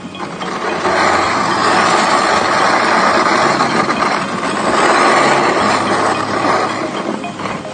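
A sled sliding fast down packed snow: a continuous, grainy scraping hiss of runners on snow that builds about a second in.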